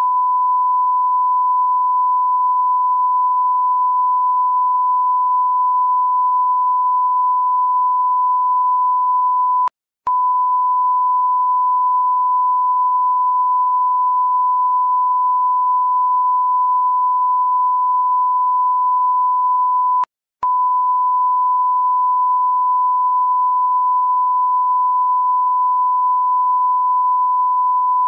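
Test-pattern reference tone that accompanies colour bars: one steady, pure, high-pitched beep held at a single pitch. It drops out briefly twice, about ten seconds apart.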